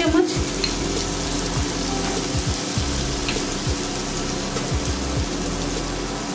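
Chopped onion and ginger-garlic paste frying in hot oil in a pan, a steady sizzling hiss.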